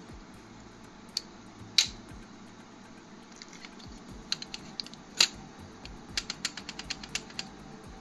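Hard plastic clicks and knocks as a 3D-printed quick-release plate is fitted to and handled on a tripod head. There are two sharp clicks, about two seconds in and just past five seconds, then a quick run of light ticks.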